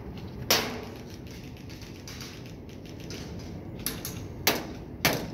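Airsoft rifle firing single shots, each a sharp crack: one about half a second in, then four more in quick succession near the end.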